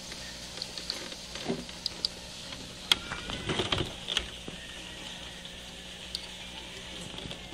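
Light clicks and rustling of hands working motorcycle wiring and plastic connectors, with a sharp click about three seconds in and a short burst of handling noise just after, over a steady hiss.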